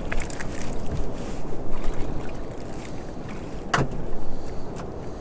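Steady wash of wind and sea around a small open boat, with small clicks from handling a fish and tackle and one sharper tap a little before the end.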